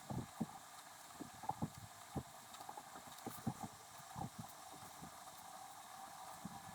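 Sped-up desk sounds of handwriting a letter: irregular soft knocks and rubs of a pen and hand on paper, several a second, over a steady faint hiss.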